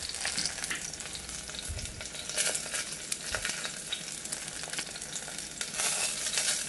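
Shallots frying in oil in a stainless steel pot, a steady light sizzle of fine crackles and pops as the onions are sautéed for sambar.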